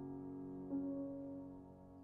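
Grand piano playing slow held chords; a new chord is struck about three-quarters of a second in and rings on, fading away.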